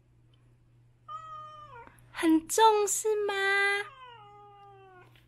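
Domestic cat meowing several times. A short falling meow comes about a second in, then a louder run of meows, then a long meow that falls in pitch and fades. The owner takes the meows as complaint at having to wear a costume hat.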